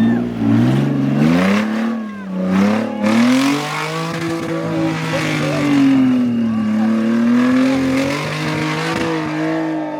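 Off-road 4x4 vehicle's engine revving up and down under load, its pitch rising and falling several times, with a few short knocks.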